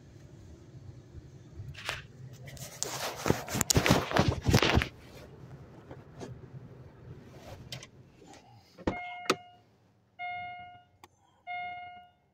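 Car idling with a low hum, then about two seconds of loud rushing, rustling noise a few seconds in. Near the end come two sharp clicks and then an electronic chime that repeats about every second and a half.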